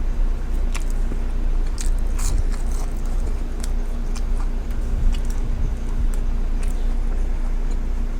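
Close-miked chewing and biting of crisp fried onion rings, with scattered sharp crunchy clicks and mouth noises, over a steady low electrical hum.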